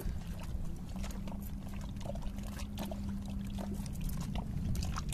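Sea water sloshing and trickling around shoreline rocks over a steady low motor hum. A few faint clicks are scattered through it, the snips of scissors cutting shrimp bait.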